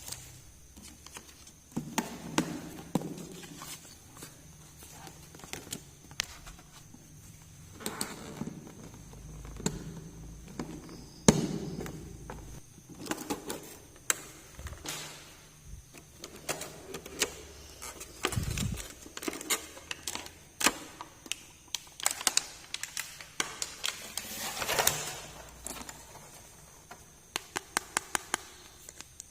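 Small plastic toy pieces being handled, tapped and set down: scattered clicks, taps and light knocks, with a quick run of about half a dozen clicks near the end.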